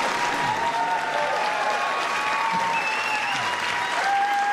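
Audience applauding steadily, with a few long, steady high tones held over the clapping that shift to new pitches now and then.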